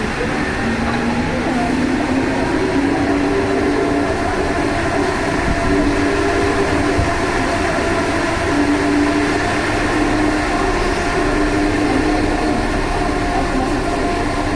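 MP89 rubber-tyred metro train running, heard from on board, with steady whining tones from the motor car, the lower one rising about a second in. This whine is the odd noise the rider singles out on that motor car.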